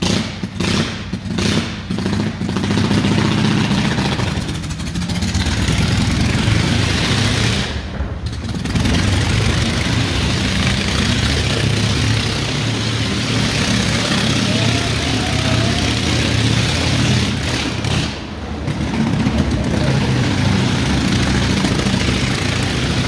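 Vintage motorcycle engine running hard as it circles a wooden wall-of-death drum. The engine pulses unevenly in the first couple of seconds, then runs steadily loud, with the throttle eased briefly three times.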